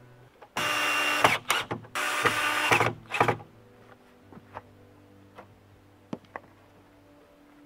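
Red cordless drill run in two short bursts of under a second each, followed by a few faint knocks.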